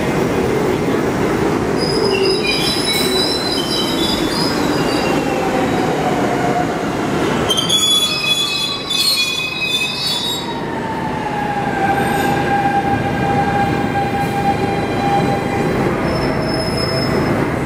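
R68A subway train braking into a station and coming to a stop. Its wheels squeal in high screeches a few seconds in and again around the middle, and a falling whine slows and settles as the train halts, all over the steady noise of the running train.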